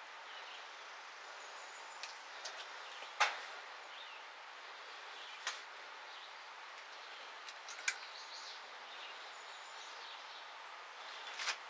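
Steady faint hiss with a few scattered sharp clicks, the loudest about three seconds in; a louder metallic clatter begins right at the end.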